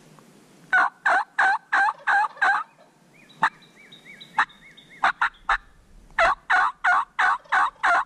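Turkey yelping: a run of six yelps at about three a second, then a few single sharp clucks, then another run of six yelps.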